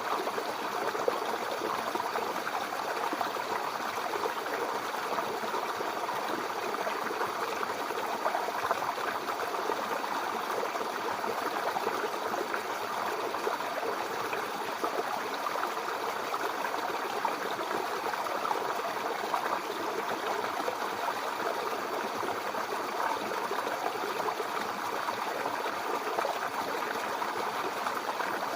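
Babbling brook: shallow water running steadily over stones, a continuous bubbling rush with small splashes and gurgles.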